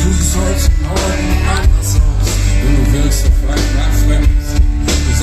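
Rock band playing live, loud, with heavy bass, drums and guitars.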